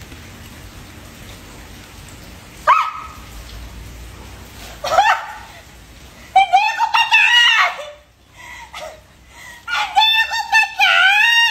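A woman shrieking in fright: short yelps about three and five seconds in, then long, high, wavering screams in the second half.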